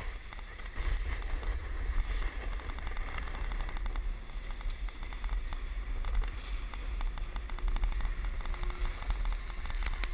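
Wind buffeting an action camera's microphone in a steady low rumble, over the gritty scrape of a snowboard sliding across packed snow.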